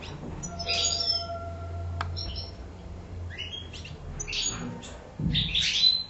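Caged finch singing, a run of short bright chirping and twittering phrases, with a low thump about five seconds in.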